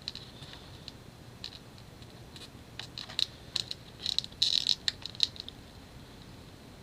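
Light, scattered clicks and taps of small plastic tablet parts being handled and pressed into place, a cluster of quick ones about four to five seconds in.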